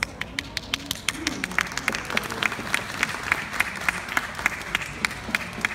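Audience applauding, with one person's claps standing out loud and close, about four a second.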